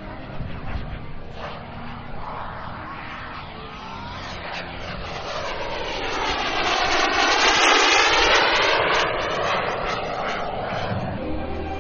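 Radio-controlled BAE Hawk model jet flying past. Its jet noise swells to a peak about eight seconds in, then falls away.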